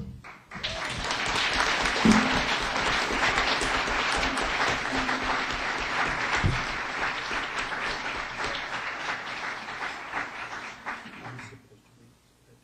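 An audience applauding. The applause starts just after a speech ends, holds steady, and dies away near the end.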